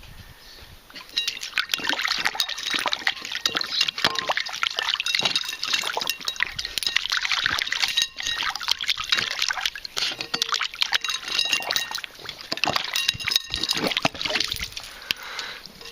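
Border collie puppy pawing and splashing at water: a quick, irregular run of splashes that starts about a second in and goes on with brief pauses, easing off near the end.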